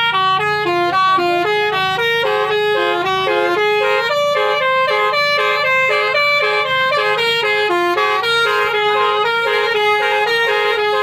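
Telolet basuri bus horn playing a quick melody of clear, held horn notes, several a second, over a steady low hum.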